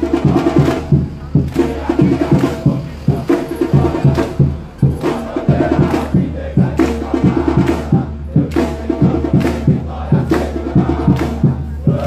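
Large crowd of football supporters chanting and singing in unison over a steady rhythmic beat of about two strikes a second.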